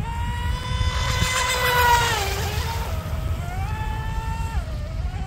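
Electric RC mono boat's motor and propeller whining at speed, its hull fitted with lifting strakes. The steady high whine drops in pitch about two seconds in, climbs back a second later, and falls again near the end.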